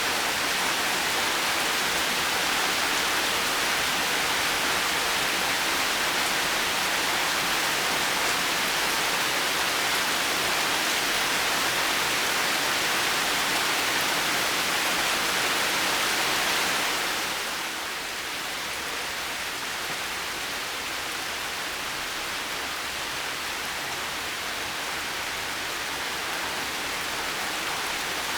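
Heavy rain falling steadily, a dense even hiss. Some way past the middle it softens a little and loses some of its top end, then goes on evenly.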